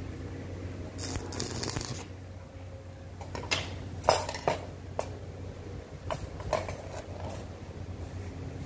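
Metal clinking and rattling as a stainless-steel wire barbecue grill and steel rods are handled and fitted together: a scraping slide about a second in, then several sharp metallic taps.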